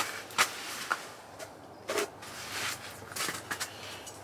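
Handling noise from the angler jigging an ice fishing rod: scattered rustles and scuffs, a few of them sharp, at irregular intervals.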